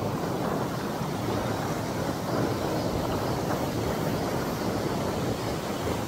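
Mountain stream rushing and churning over rocks: a steady, unbroken rush of water.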